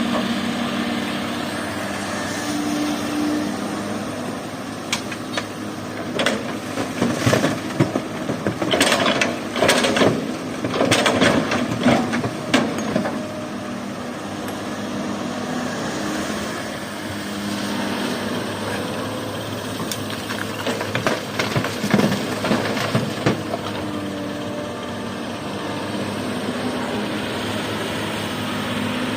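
Excavator diesel engine running steadily, with clattering knocks of rock being scooped and dropped into a dump truck bed in two spells, a long one before the middle and a shorter one later.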